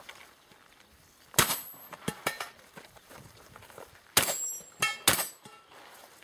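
Shotgun shots during a competition stage: three loud shots, the first about a second and a half in and the last two close together near the end. Lighter metallic clangs come in between, and a brief ringing follows the last shots, as of struck steel targets.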